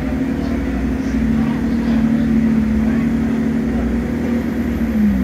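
An engine or motor running steadily at one pitch, with a brief dip in pitch near the end.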